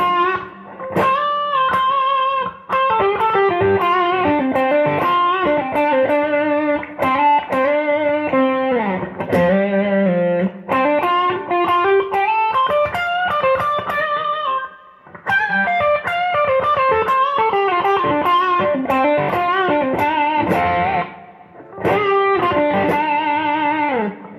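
Electric guitar on McLguitars V2 clone pickups, in the bridge-and-middle position with the tone rolled back and the volume full up, played through a Bluesbreaker and TS10 overdrive pedals. A bluesy lead line of single notes with string bends, broken by brief pauses about a third of the way in, halfway through and near the end.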